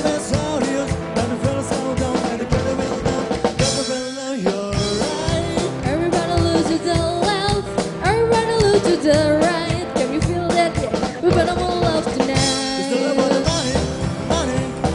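Live rock and roll band playing: electric guitar, upright double bass and drum kit, with singing. The bass and drums drop out briefly twice.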